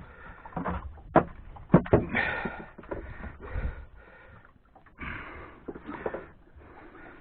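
Handling noise: a run of scuffs and rustles broken by several sharp knocks, the loudest about a second in and just before two seconds, as a landed flathead and fishing gear are moved about.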